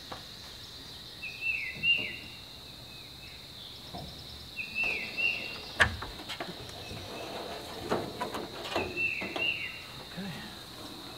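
A songbird repeats a short falling chirp phrase three times over a steady high-pitched insect drone. Scattered knocks and rattles come from a polycarbonate roof panel being handled into the gazebo's metal frame, with the sharpest knock about halfway through.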